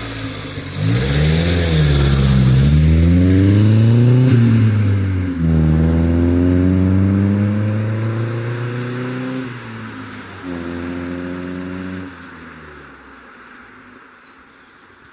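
Corsa B car engine and exhaust revving. The pitch climbs for about three seconds and dips. It drops sharply about five seconds in, climbs again, then sinks and fades, with one short final burst of revs before dying away.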